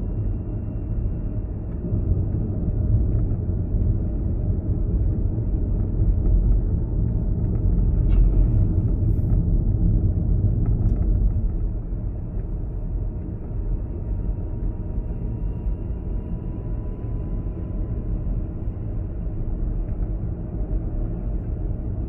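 A car driving: a steady low rumble of engine and tyres, a little louder for a few seconds around the middle, with a faint whine that drifts slightly in pitch.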